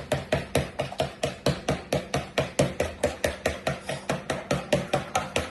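Eggs being beaten in a bowl, a fork or whisk tapping the bowl in a quick, even rhythm of about five strokes a second.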